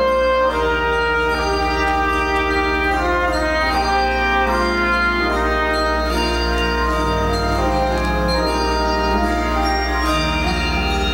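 Handbell choir ringing sustained, slowly changing chords with organ accompaniment.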